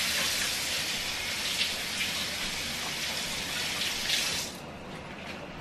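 Kitchen tap running as vegetables are rinsed under it. The water shuts off about four and a half seconds in.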